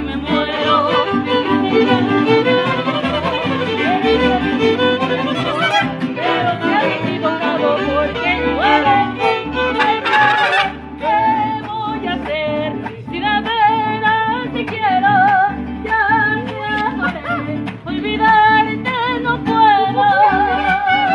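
Mariachi band playing, violins carrying a wavering melody over a steady strummed rhythm with a low bass pulse.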